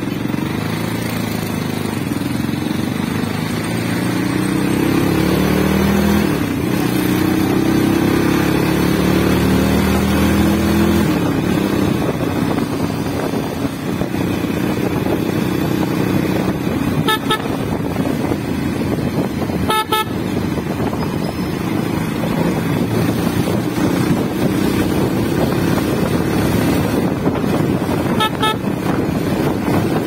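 Motorcycle engine pulling up through the gears, its pitch rising twice in the first ten seconds or so, then cruising with wind noise. Short horn toots sound about halfway through, again a few seconds later, and near the end.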